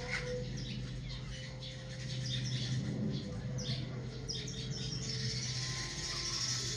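Small birds chirping in a quick series of short calls, over a steady low hum.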